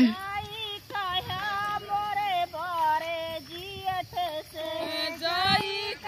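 A woman singing a folk song, unaccompanied, in long held notes that bend and waver.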